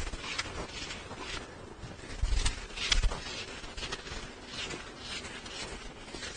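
A series of short, scratchy writing strokes on a board or paper, with two dull knocks about two and a half and three seconds in.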